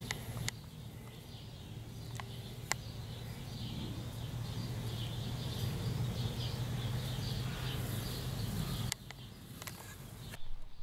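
Background ambience: a steady low hum with small birds chirping faintly and a few sharp clicks.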